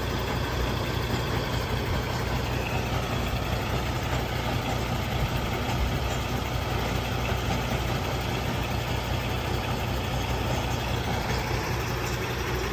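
Sewage vacuum tanker truck's engine running steadily at a constant speed, a low even hum.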